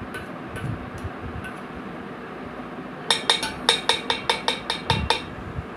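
A steel spoon stirring inside an aluminium pot, clinking against its sides in a quick run of about a dozen sharp, ringing clinks from about halfway through.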